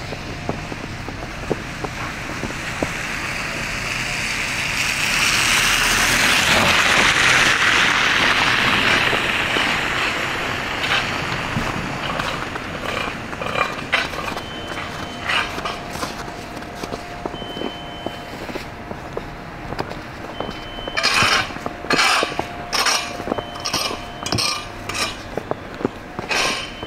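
A vehicle passes on the slushy road, its tyre hiss swelling and fading over several seconds in the first half. Later, footsteps crunch through fresh snow in a steady walk, about two steps a second.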